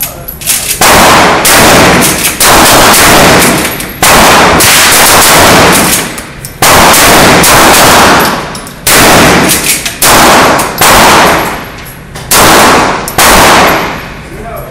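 Handgun shots fired in an indoor range, a string of loud, sharp reports at uneven intervals, each with a long echo that rings on before the next shot.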